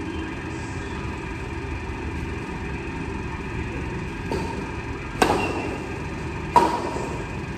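Badminton rackets striking a shuttlecock in a rally: two sharp hits about a second and a half apart, each with a short echo off the hall, after a fainter tap. Steady background hum throughout.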